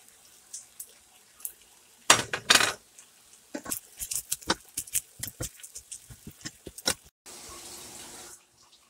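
Utensil scraping and clacking against a metal pan while fried rice is stirred: a quick, uneven run of taps and scrapes lasting a few seconds. Two short, loud bursts of noise come before it, and a steady hiss about a second long comes near the end.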